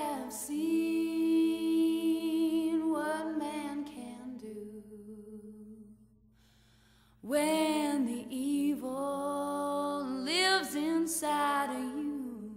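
Music: a singing voice holding long, wavering notes in two phrases, with a pause of about a second near the middle.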